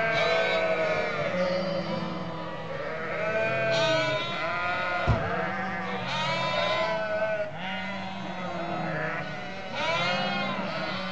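A flock of sheep bleating, many calls overlapping with no break. A single sharp knock about halfway through.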